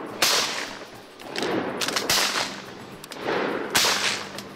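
Shotgun blasts during duck hunting: several shots a second or two apart, each a sharp crack that rings out and fades slowly, with quieter shots between the loudest ones.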